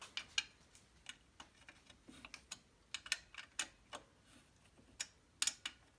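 Light metallic clicks and taps at an irregular pace as an Allen wrench snugs up a mounting bolt on a chain grinder's aluminium bracket.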